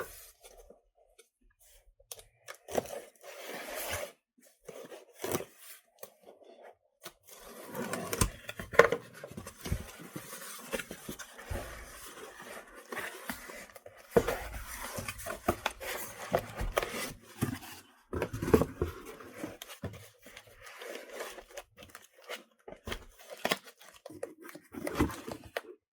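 A cardboard box and its packing being opened and handled by hand: irregular rustling and scraping with sharp knocks, stopping and starting.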